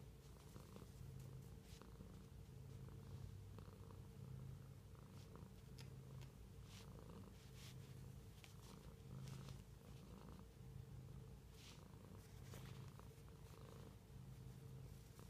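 Domestic cat purring softly and steadily, the low rumble swelling and easing about once a second or so with its breathing.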